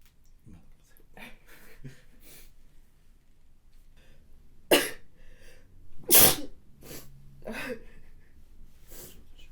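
A woman sneezing twice, about a second and a half apart, nearly five seconds in, with softer breathy sounds before and after.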